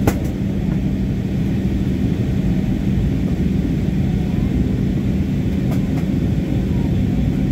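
Airliner cabin noise on the landing approach: a steady rumble of jet engines and rushing air with a constant low hum. A sharp click right at the start.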